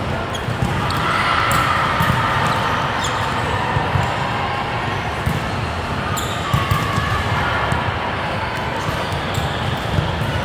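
Volleyballs being hit and slapping onto the court floor: irregular sharp smacks, several a few seconds apart, echoing in a large indoor hall over a steady background din.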